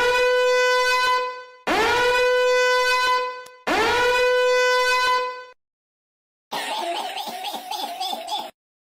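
A horn sound effect blowing three identical long blasts, each sliding quickly up into one steady held note. After a short pause comes a shorter, rougher, wavering buzzing sound.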